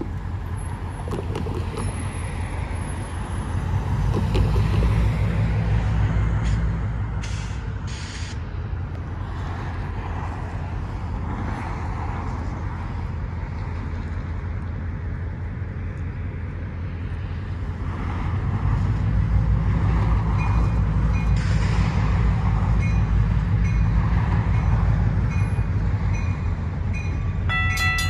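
Road traffic passing with a low rumble that swells twice. Near the end a railroad grade-crossing warning bell starts ringing, its signals activating for an approaching train.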